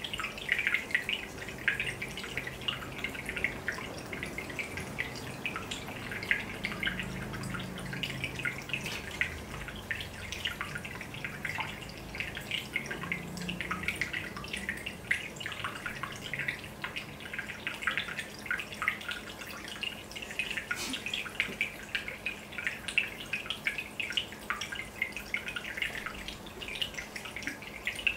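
Aquarium air bubbles rising and bursting at the water surface: a continuous patter of small plinks and drips, with a low steady hum underneath.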